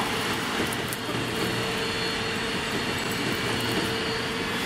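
Laboratory two-roll open mixing mill running: a steady mechanical drone from the mill's motor and turning rolls, with a constant hum.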